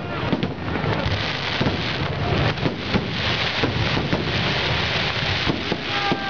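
Fireworks display: a dense, continuous crackle of bursting shells, packed with many sharp bangs.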